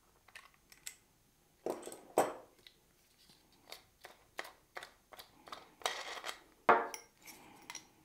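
Metal parts of a Kinu M47 hand coffee grinder clicking and clinking as it is taken apart to get at the burr. There is a short scraping rattle a little past the middle and a sharp knock just after it, the loudest sound.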